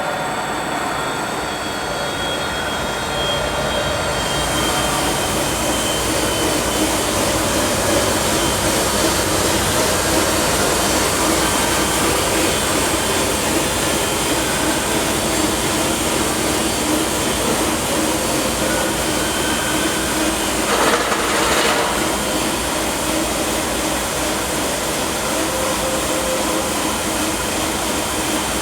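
Stretch-film rewinding machine with pre-stretch rollers running, transferring film from a jumbo roll: a steady mechanical running noise. A hiss fills in about four seconds in, and there is a brief louder rush about twenty-one seconds in.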